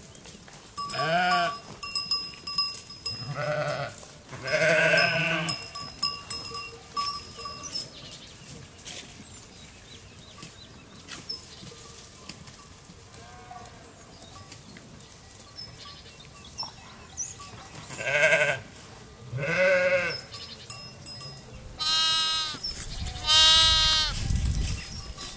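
Sheep bleating in separate calls with a wavering pitch: three in the first few seconds, two more well past the middle, and two higher-pitched lamb bleats near the end over a low rumble.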